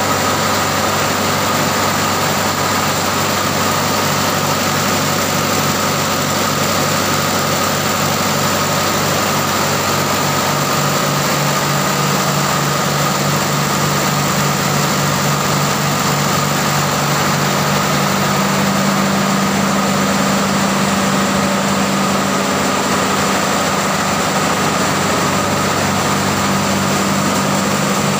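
Diesel engines running steadily in a ship's engine room: a constant drone with a steady hum, its mix of low tones shifting about two-thirds of the way through.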